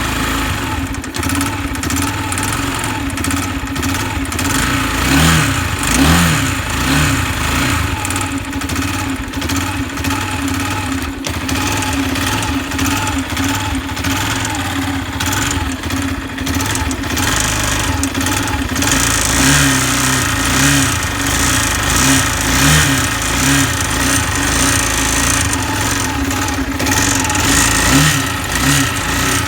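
Racer Fighter 250 motorcycle engine running at idle with several short throttle blips, and the knock it developed after running short of oil.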